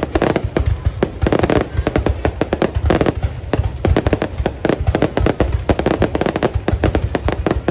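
Fireworks display: a rapid, unbroken barrage of bangs and pops, many each second.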